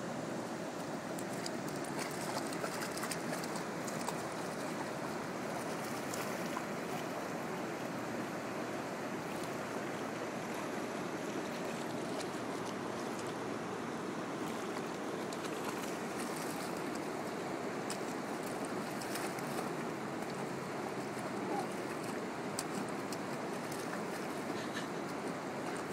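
Steady rush of river water running over rocks and a low weir, with faint light splashes now and then from a dog wading in the shallows.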